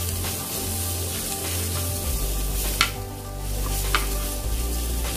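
Raw rice and chopped onion sizzling as they fry in hot oil in a nonstick pot, stirred with a metal spoon that clicks against the pot a couple of times.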